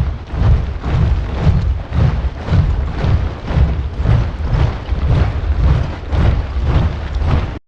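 A large body of soldiers marching in step, their boots striking the ground together in heavy, even thuds about twice a second.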